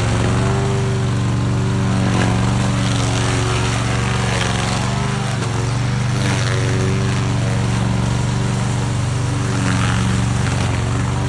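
Small engine of a remote-controlled lawn mower running steadily, its pitch wavering a little.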